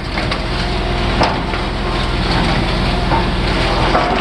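Engine of a material-handling machine running steadily as it lifts a slab of 2-inch steel plate, with a single knock about a second in.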